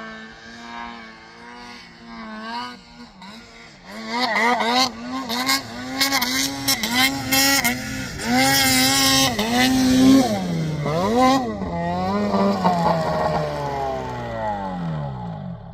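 Snowmobile engine revving hard, its pitch climbing and dropping again and again with the throttle, louder from about four seconds in. Near the end the pitch falls as the engine winds down and fades.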